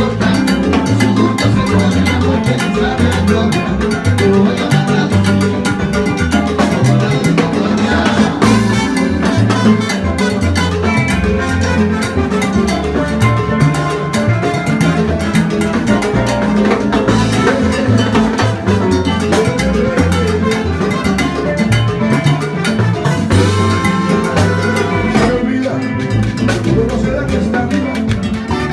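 Cuban timba band playing live, an instrumental passage with a steady dance groove of drum kit, congas, bass and horns.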